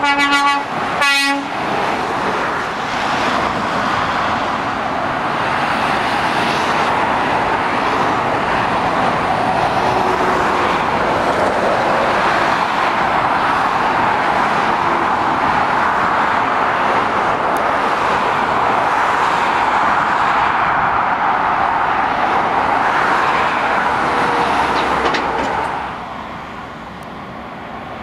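Two short horn toots right at the start, then a steady rush of passing motorway traffic, mostly tyre noise and heavy truck engines, easing off about 26 seconds in.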